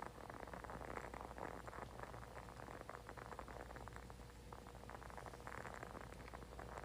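Faint candle crackling: a quick, irregular run of tiny clicks that thins out briefly a little past the middle, then picks up again.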